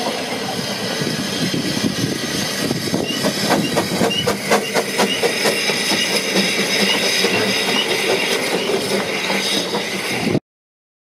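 The narrow-gauge 2-6-2T steam tank locomotive Lyd running slowly along station track, with a steady hiss of steam and a run of clicks and knocks from wheels on rail about three to five seconds in. The sound cuts out abruptly near the end.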